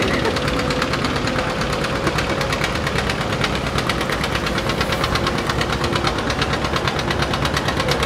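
John Deere B's two-cylinder engine running as it pulls the weight sled, with a steady, even popping beat that grows plainer about two seconds in.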